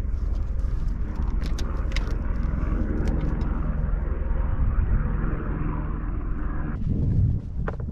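Steady wind rumble buffeting the microphone, with a few light clicks. The higher hiss cuts off suddenly near the end.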